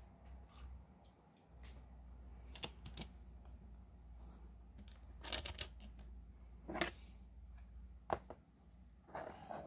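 Scattered light clicks and taps as a small diecast model car is set down in a miniature garage diorama and a clear acrylic display cover is fitted over it. The sharpest clicks come about two-thirds of the way in.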